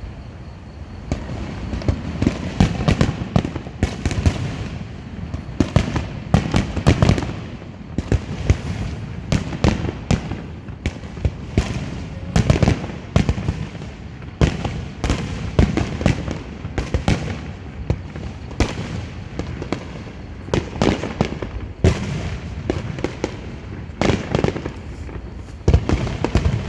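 Aerial fireworks bursting in a dense, irregular barrage of loud bangs and crackles, several a second, with rumbling echo between them.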